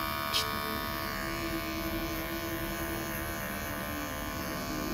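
Wahl Bravura cordless electric clipper with a guard comb running with a steady buzz while it trims short facial hair.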